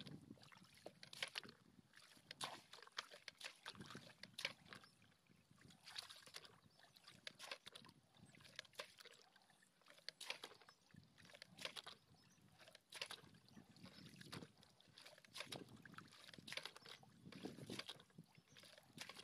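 Faint, irregular splashing and sloshing of shallow muddy water as a bucket scoops it out of a ditch.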